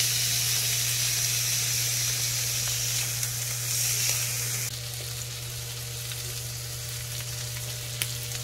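Skewered chicken wings sizzling on a grill grate over low heat: a steady hiss over a low hum, getting a little quieter about halfway through, with a single click near the end.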